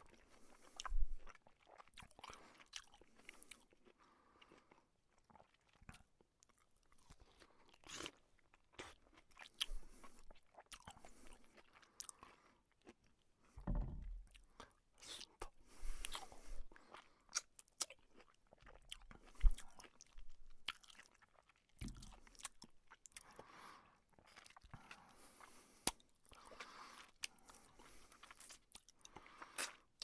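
A person biting into and chewing juicy fruit noisily, munching with wet crunches at an irregular pace and short pauses between mouthfuls.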